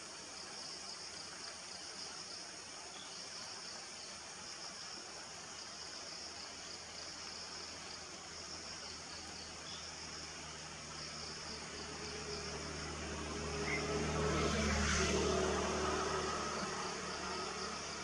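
Steady high hiss of an insect chorus. A low hum swells in about two-thirds of the way through, is loudest shortly before the end, then fades.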